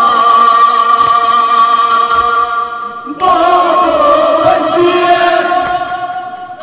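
Men's voices singing a Kashmiri noha, a Shia lament, in two long held phrases. The first breaks off about three seconds in, and the second fades near the end.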